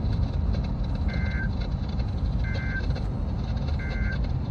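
Three short EAS end-of-message data bursts on a NOAA Weather Radio broadcast, each a rapid two-tone warble of SAME digital code, about a second and a half apart. They mark the end of the severe thunderstorm warning. A steady low rumble and hiss lies underneath.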